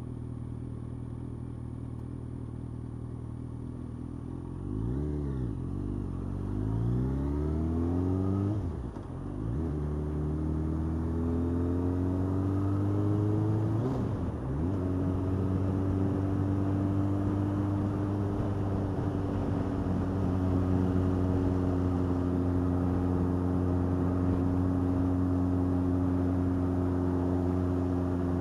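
Yamaha FZ8's inline-four engine idling, then revving as the motorcycle pulls away, its pitch rising, dipping briefly at two gear changes, then settling into a steady run at cruising speed.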